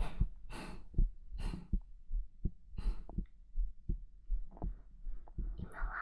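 Heartbeat picked up by a microphone close against the body, a low beating pulse repeating steadily, with soft breathy hiss over it.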